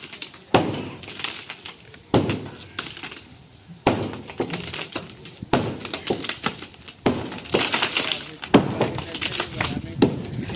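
A hammer striking a concrete slab, breaking it up with seven blows about a second and a half apart. Each blow is followed by a short rattle of loose pieces.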